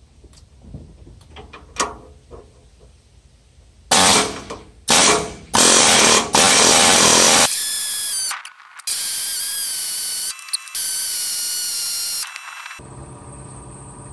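A pneumatic air hammer hammering on a seized, rusted tractor top link pivot pin to drive it out of its bracket. A few light handling clicks come first. About four seconds in it starts in several very loud bursts, then runs in longer, steadier stretches with two brief breaks, and stops shortly before the end.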